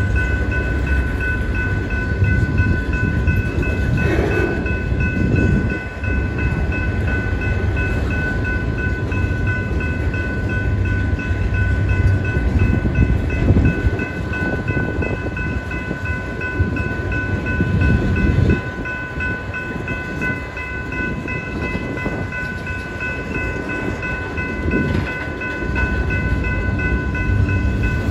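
Union Pacific freight train's autorack cars rolling past, with a continuous low rumble and wheels clacking over the rail. A grade-crossing warning bell rings steadily over it at a fixed pitch.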